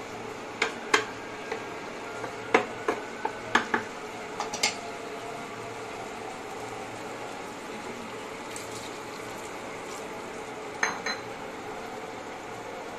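A spatula stirring and knocking against a frying pan of dried-beef and potato curry: about a dozen sharp knocks in the first five seconds, then two light clicks near the end. Underneath, the curry sizzles steadily in the pan.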